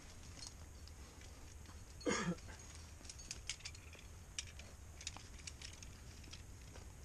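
Scattered light clicks and clinks of trad climbing gear (carabiners and cams on a harness) and scuffs on rock as a climber starts up the route, with one louder, brief sound about two seconds in that drops in pitch.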